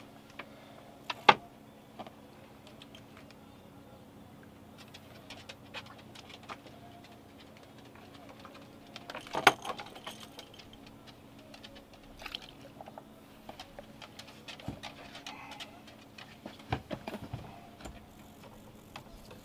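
Scattered clicks, knocks and light metallic clinking of fishing gear and landing net as a redfish is netted and brought aboard, with two sharp knocks, one about a second in and one about halfway through. A faint steady hum runs underneath.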